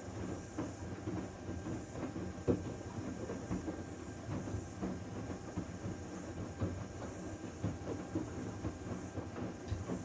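Panasonic VX6 front-loading washing machine in its main wash, the drum turning the load with a steady rumble and irregular clicks and knocks; one louder knock about two and a half seconds in.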